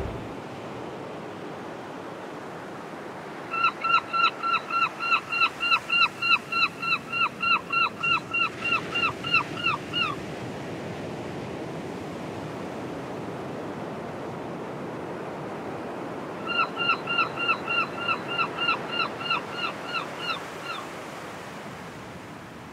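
A bird calling in two long runs of short, falling notes, about three a second. The second run is shorter and fades toward its end. Under it, a steady hiss of surf.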